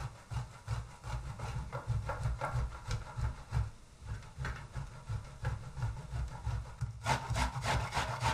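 Food being grated on a stainless steel box grater standing on a wooden cutting board: sausage and hard cheese rubbed over the coarse side in rhythmic rasping strokes, about three a second, each with a low knock from the grater on the board. About seven seconds in, the strokes turn faster and sharper as an onion is grated.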